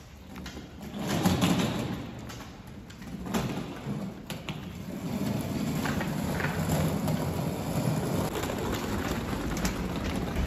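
Wheels of a rolling suitcase rumbling over concrete, with a few light clicks, louder about a second in and steadier from about halfway through.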